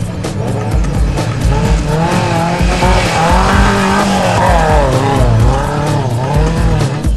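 Off-road race truck engine revving, its pitch swinging up and down repeatedly, over backing music with a steady beat.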